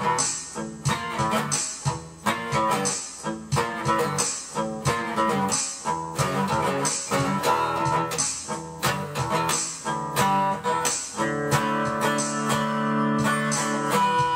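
Acoustic guitar playing, chords strummed and picked in a steady rhythm; about eleven seconds in the chords ring out longer.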